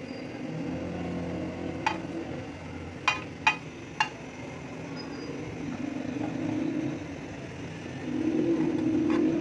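A steel spoon clinking and scraping on a flat metal pan as whole coriander and cumin seeds are stirred while dry-roasting. There are four sharp clinks a couple of seconds in, over a steady low rumble that grows louder near the end.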